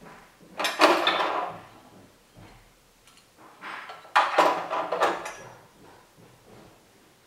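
Clunks and rattles of a portable walking-foot sewing machine being handled in its plastic case base as the machine head is tilted back and set down. There are two bursts of knocking, about a second in and again about four seconds in.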